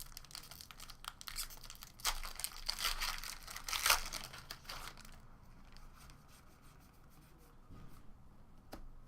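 Trading-card pack wrapper being torn open and crinkled, loudest in the first few seconds and settling to light rustling after about five seconds.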